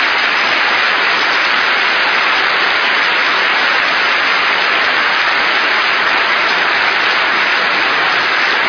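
A large assembly-hall audience applauding, a loud, steady, unbroken ovation of many hands clapping.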